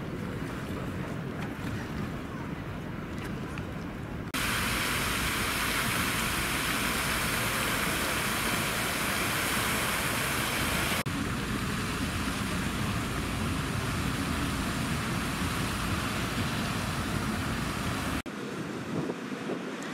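Outdoor city ambience with traffic noise, a steady wash of sound that changes abruptly several times. From about four to eleven seconds in, a louder, brighter hiss comes in.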